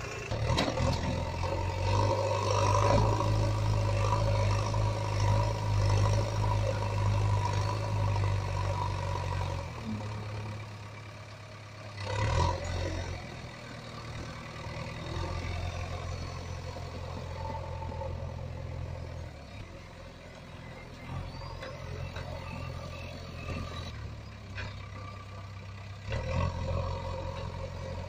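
Heavy vehicle engine running steadily: a low hum that shifts in level every few seconds, with a brief louder burst about twelve seconds in.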